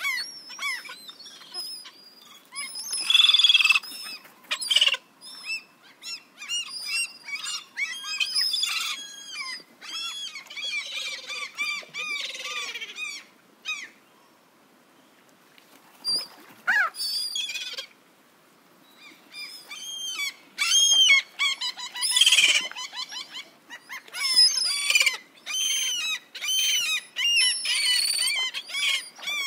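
A flock of gulls calling: many short, arching cries from several birds overlapping in busy bursts, falling nearly quiet twice in the middle.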